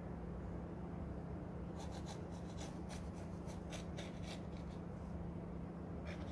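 Kitchen knife cutting a slice of flattened sandwich bread in half against the table: a run of short, faint scratching strokes, about three a second, from about two seconds in until past the middle.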